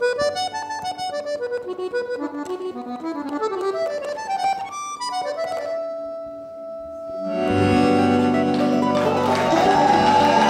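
Giulietti piano accordion playing a quick melodic run of single notes, then holding one note, then swelling into a loud, full sustained chord with bass about seven and a half seconds in.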